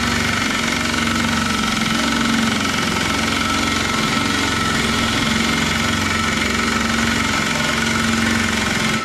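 Impact wrench hammering continuously on a puller's centre screw, which is forcing out the seized brake drum and shaft of an Allis Chalmers B tractor. The screw turns only very slowly under the load. The hammering stops abruptly at the end.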